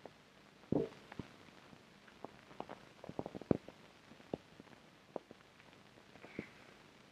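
Small knocks and clicks of objects being handled on a table, with a louder thump about a second in and a quick run of clicks around the middle, over the steady hiss of an old film soundtrack.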